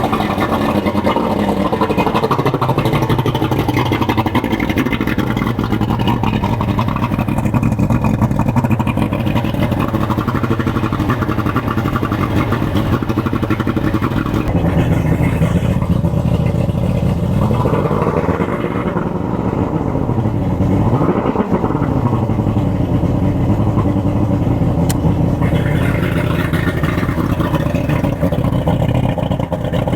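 Boat engine running on its pre-season start-up, steady throughout, with the revs briefly raised and dropped again about two-thirds of the way through.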